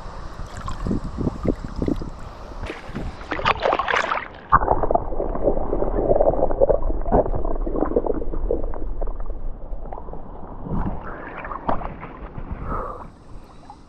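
Water sloshing and gurgling, with wind rumbling on the microphone. About four and a half seconds in, the sound suddenly turns muffled and dull, all its high end gone, and it stays that way to near the end.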